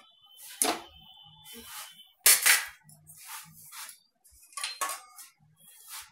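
Metal kitchenware clattering: a wire-mesh strainer and a stainless steel plate knocking against the frying pan and each other in several sharp clinks. The loudest clink comes a little over two seconds in, and the first leaves a short high ring.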